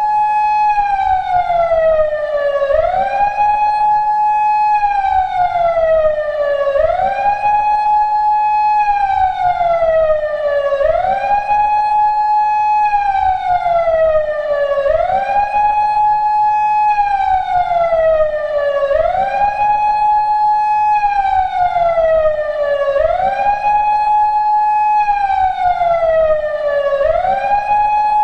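PATLITE SAP-50 electronic siren amplifier sounding a loud wailing siren tone that rises quickly, holds at the top, then slides slowly back down, repeating about every four seconds in the pattern of a Japanese police-car siren.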